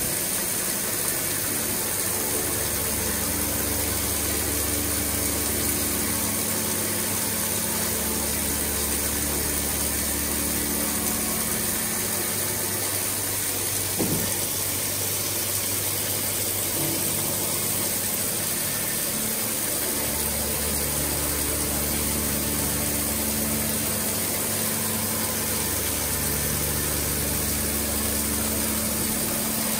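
Chiron DZ 18 W vertical CNC machining centre cutting under flood coolant: a steady hiss of coolant spray over the machine's running hum. The low hum comes and goes every few seconds as the machine works through its moves, with one short sharp sound about halfway.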